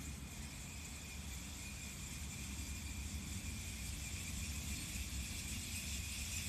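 Harsh noise from a windmill: a dense, steady low rumble under a hiss with a few faint high steady tones, slowly growing louder.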